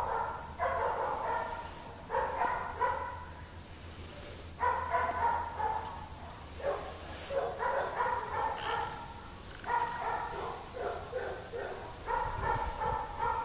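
A dog yipping in runs of short, quick, high barks, with brief pauses between the runs.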